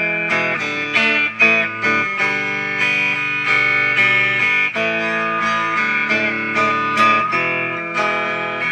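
Guitar strumming chords in a steady rhythm, an instrumental intro with no singing yet.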